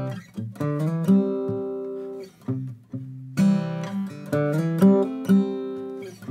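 Acoustic guitar: a chord strummed, then a short lick of two-note double stops with a hammer-on, the chord-and-lick phrase played twice, the second time starting about three and a half seconds in.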